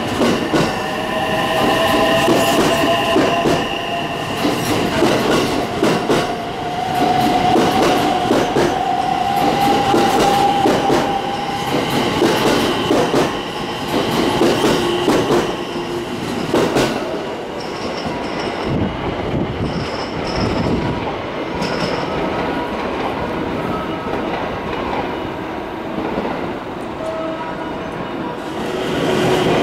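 JR West stainless commuter electric train running past close by: wheel-on-rail rumble and clatter, with a motor whine that rises slowly in pitch over the first ten seconds or so.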